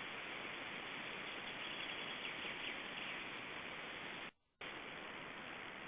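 Steady hiss from a nest webcam's microphone picking up the forest background. The sound cuts out for a moment about two-thirds of the way through, then resumes unchanged.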